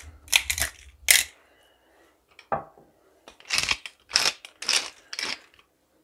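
Hand-turned salt and pepper mill grinding over a salad in a series of short rasping twists, with a pause of about a second around two seconds in.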